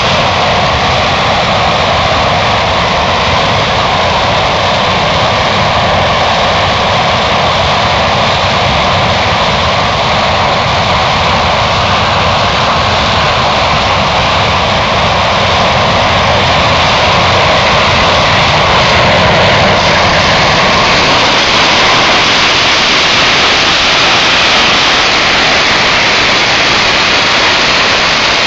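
English Electric Lightning's jet engines running loud and steady, the noise growing harsher and brighter about twenty seconds in.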